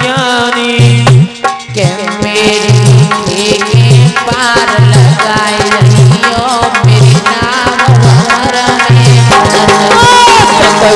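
Devotional folk dance music: a hand drum keeps a steady beat of about one stroke a second under held melodic lines.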